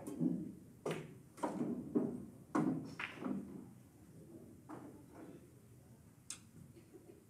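Pool balls clacking in a pool hall: a run of sharp clicks of cue tip, ball on ball and cushion, close together in the first three seconds, with a couple of fainter ones later.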